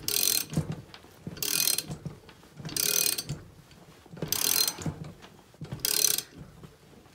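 Ratchet wrench clicking in five short bursts, about one every second and a half, as it is swung back and forth to crank the chain of a Ridgid 226 soil pipe cutter tight around 2-inch cast iron pipe. A softer low knock follows each burst as the cutter chain takes up load on the way to snapping the pipe.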